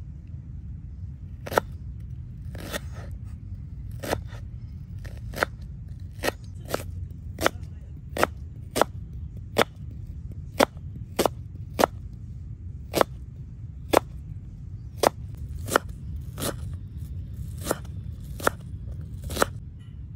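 Knife cutting through onion, a series of sharp crisp cuts about once or twice a second, quickening in the middle, over a steady low rumble.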